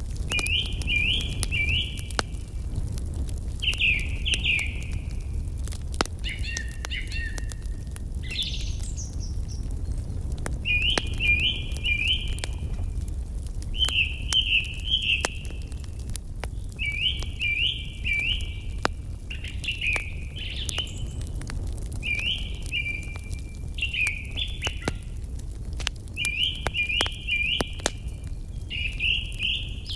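Wood fire crackling with scattered sharp pops, while a small songbird repeatedly sings short phrases of three or four quick chirps every couple of seconds, over a steady low rumble.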